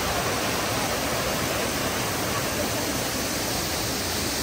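Waterfall pouring into a plunge pool: a steady, even rush of water.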